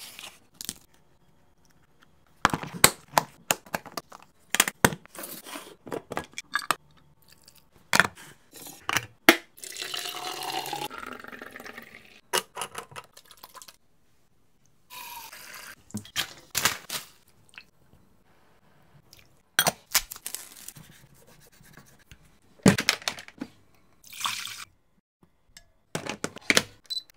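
Kitchen handling sounds: sharp clicks and knocks of plastic lunchbox lids and containers being set down and closed, with liquid poured into a container about ten seconds in, rising in pitch as it goes.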